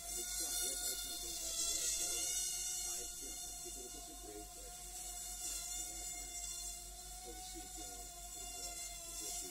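Brushed micro-quadcopter motors buzzing in flight, their pitch wavering up and down as the throttle changes, over a steady thin electrical tone. It is louder for the first few seconds, then eases off.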